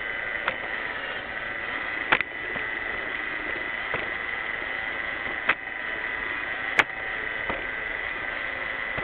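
Roomba 600-series robot vacuum running: a steady whir with a high whine, broken by several short sharp clicks and knocks.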